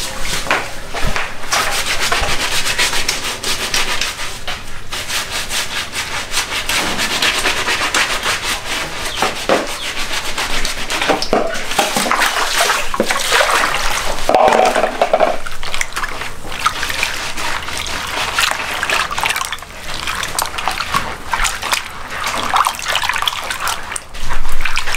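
Hands rubbing and working cooked corn kernels in water to wash them: a continuous gritty rubbing with some water splashing. A louder thump near the end.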